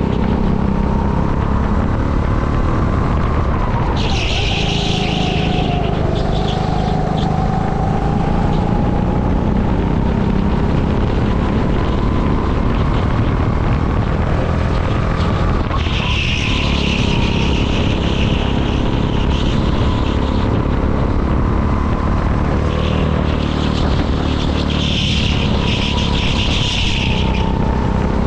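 Go-kart engine running flat out on track, its pitch dropping as it slows for corners and climbing back as it accelerates. A high hiss comes and goes three times over it.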